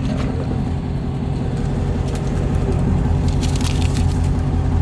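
Chevrolet Camaro SS 1LE's V8 idling steadily, heard from inside the cabin. A few light crinkles and clicks of paper and plastic being handled come through near the middle.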